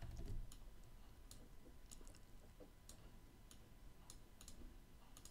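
Faint computer mouse clicks, about eight sharp ones at uneven intervals, over quiet room tone.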